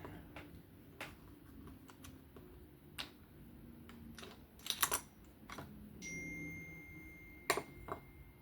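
Scattered sharp clicks and taps of small knife parts and tools being handled on a bench, as the folding knife's bearings are lubed. There is a quick cluster of clicks about five seconds in, and a faint thin high tone joins about six seconds in.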